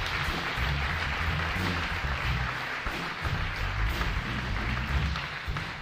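Congregation applauding, with the live band playing softly underneath.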